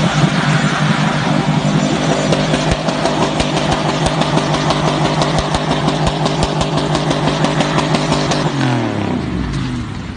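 Pickup truck engine held at high revs while its wheels spin in deep sand, with ticks of thrown grit over the engine note. Near the end the revs drop and the pitch falls.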